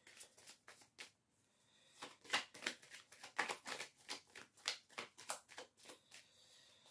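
A deck of oracle cards being shuffled by hand: a faint, irregular run of short card snaps and flicks, densest from about two seconds in.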